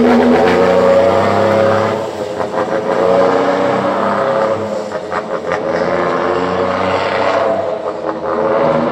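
A Scania truck's diesel engine accelerating away through its gears, its exhaust note dropping at each shift and climbing again as the engine revs up, with throttle blips between shifts.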